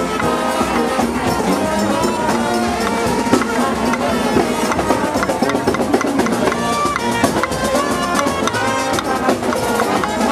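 New Orleans brass band playing a second-line march: trumpets and trombones over a driving drum beat, with crowd voices mixed in.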